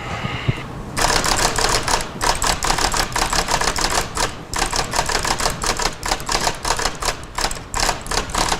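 A typewriter being typed on fast: a rapid, uneven stream of key strikes that starts about a second in, with a couple of short pauses.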